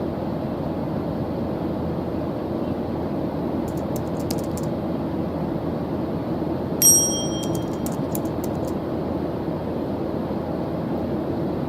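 Steady white-noise track, low and even. About seven seconds in, a single bright metallic ding rings briefly. Faint light clicks come shortly before and after it.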